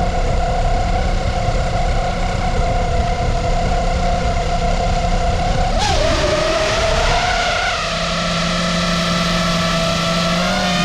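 FPV quadcopter's motors and propellers whining steadily, over a low rumble of wind on the microphone. About six seconds in, the pitch dips and wobbles, then settles at a new steady note.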